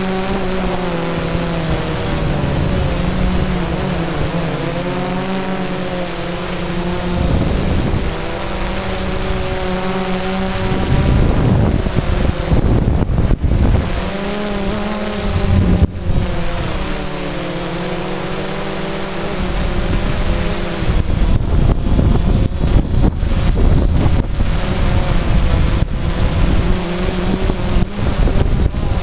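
DJI Phantom quadcopter's electric motors and propellers whining, heard from the camera mounted on the drone, the pitch wavering up and down as the throttle changes. Gusts of low rumbling wind noise on the microphone come and go, heaviest in the second half.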